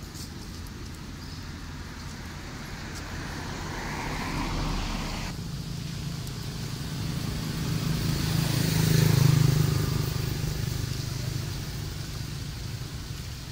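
A motor vehicle passing on the road: its engine and tyres grow louder to a peak about nine seconds in, then fade away.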